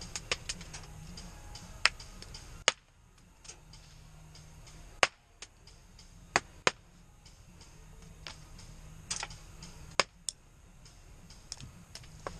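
Airsoft guns firing single shots: about six sharp cracks at irregular gaps, among smaller ticks and clicks.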